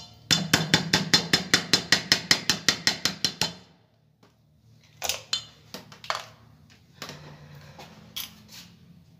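Hand blender running in a stainless steel bowl of thickened mayonnaise: a steady motor hum with a rapid, regular clatter about seven or eight times a second, cutting off about three and a half seconds in. A few scattered knocks follow.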